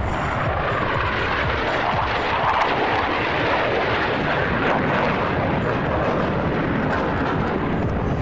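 Jet engine noise from a Blue Angels F/A-18 jet flying a pass: a loud, steady rushing roar that swells slightly about two and a half seconds in.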